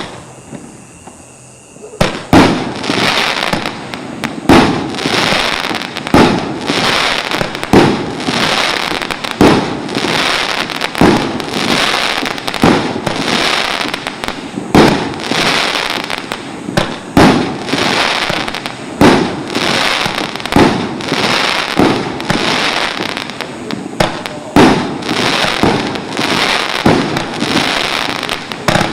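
Multi-shot consumer fireworks cake firing: a single bang, a pause of about two seconds, then a steady barrage of bursts roughly once a second with crackling between them.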